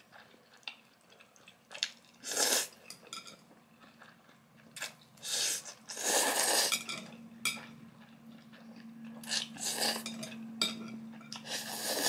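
Close-up eating of spicy fire noodles with melted cheese: several noisy slurps, each about half a second to a second long, with wet chewing and sharp clicks of metal chopsticks against the metal tray between them.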